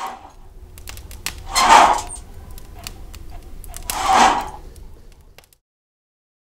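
A fire crackling with scattered sharp snaps. It twice swells into a louder rush, over a low rumble that cuts off suddenly about five and a half seconds in.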